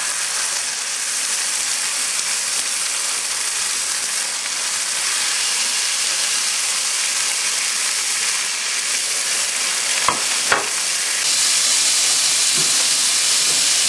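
Steak sizzling in a smoking-hot dry frying pan: a loud, steady hiss that grows a little louder near the end, with two sharp pops about ten seconds in.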